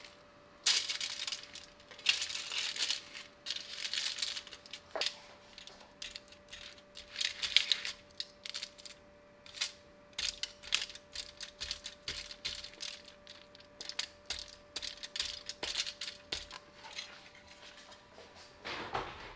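Aluminium foil crinkling and rustling in irregular bursts, with light clicks and knocks, as raw duck legs are handled on a foil-lined baking tray. A faint steady hum runs underneath.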